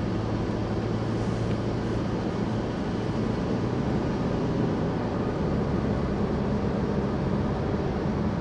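A car driving at highway speed: a steady hum of tyre and engine noise.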